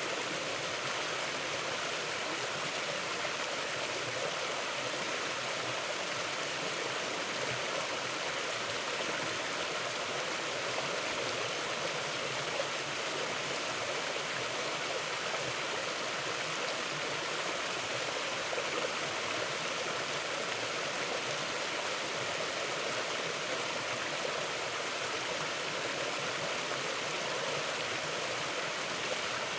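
Mountain stream flowing, a steady, even rush of water with no breaks or changes.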